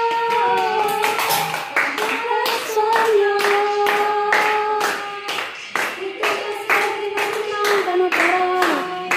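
A high voice sings a slow melody in long held notes while a group claps along in time, about two claps a second.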